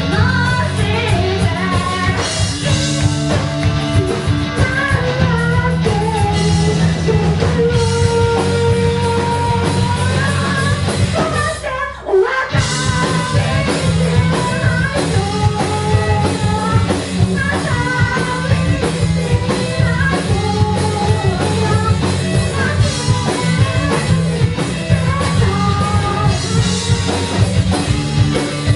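Rock band playing live with a lead vocal singing over guitar and drums; the music drops out briefly about twelve seconds in, then carries on.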